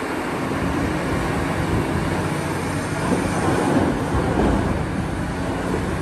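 Cat 6015B hydraulic mining excavator working under load as it loads a dump truck: a steady, loud engine-and-hydraulics noise.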